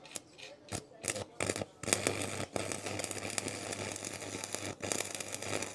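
Electric arc welding crackling steadily over a low, even hum, starting about two seconds in after a few sharp clicks.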